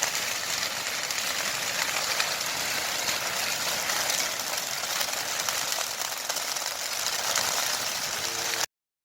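Grass fire burning: a dense, steady crackling and rushing of flames through dry grassland that cuts off suddenly near the end.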